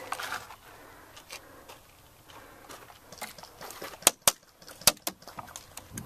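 An airsoft player moving with gear rattling and scuffing, and three sharp snaps about four to five seconds in.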